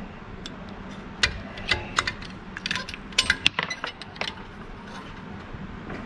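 About a dozen sharp, irregular metal taps and clicks from a screwdriver knocking against the steel shell of a hermetic refrigeration compressor, stopping about four seconds in. The compressor will not start, and the technician judges it needs replacing.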